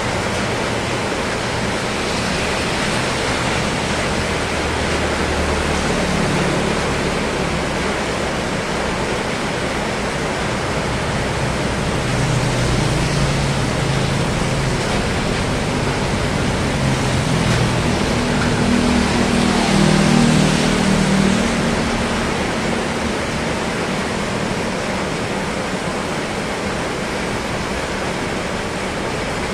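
Rain falling steadily, a dense even hiss. A motorcycle engine passes through it partway in.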